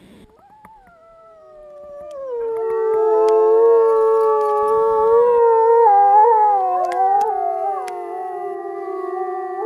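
Pack of grey wolves howling in chorus. One howl rises first, then several more voices at different pitches join about two seconds in, overlapping and sliding up and down. The chorus is loudest in the middle and still going at the end.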